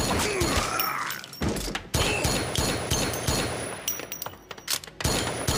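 Rapid pistol gunfire: many shots in quick succession, starting abruptly, with a short break about a second and a half in and another near the end.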